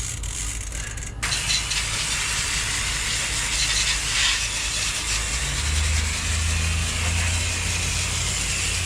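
Water spraying from a hose, a steady hiss that comes on about a second in and keeps running, over a low rumble that grows stronger past the middle.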